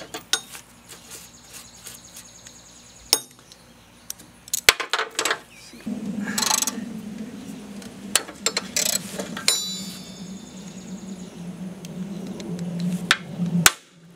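A socket ratchet clicking in short runs and metal tools clinking as rusted spindle-assembly bolts on a riding-mower deck are worked. One clink rings briefly about two-thirds of the way through. A low steady hum sets in about halfway.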